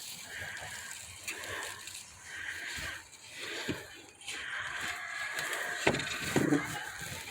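Soil being scraped and pulled aside by hand while digging for sweet potatoes in a container bed, giving an irregular rustling scrape with a few sharp clicks.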